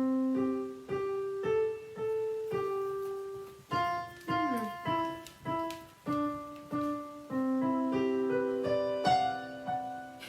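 Electronic piano playing a simple melody one note at a time, about two notes a second, with a few notes held longer.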